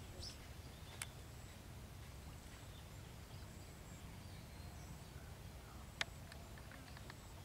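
Quiet outdoor ambience: a steady low rumble with a faint bird chirp near the start and two sharp clicks, about one and six seconds in.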